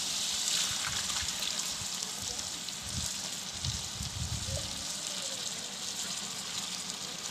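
Beef curry bubbling in a large aluminium degh over a wood fire: a steady sizzling hiss of the simmering liquid.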